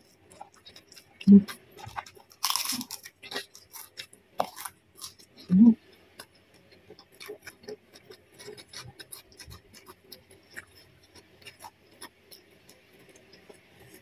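Close-miked eating sounds of a person chewing egg fried rice with a bitten fresh red chili: many small wet mouth clicks and crunches, a louder hissing crunch about two and a half seconds in, and two brief low hums at about one second and five and a half seconds.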